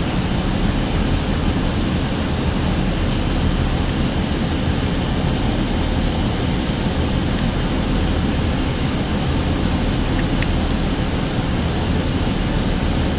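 Steady noise inside the passenger carriage of a Chiltern Railways Class 165 diesel multiple unit as it draws into a terminus platform: underfloor diesel engine and wheels on the rails, even in level.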